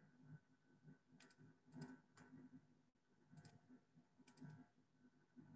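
About half a dozen faint computer mouse clicks, scattered and irregular, over near silence.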